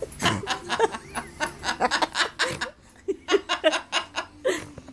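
Laughter: a quick run of short bursts that breaks off briefly a little before three seconds in.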